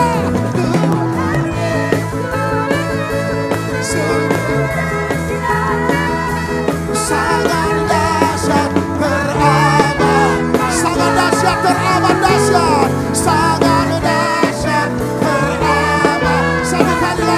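Live worship band playing an upbeat praise song: electric guitar, bass and drums with a steady beat, the guitar's wavering lead lines over held chords.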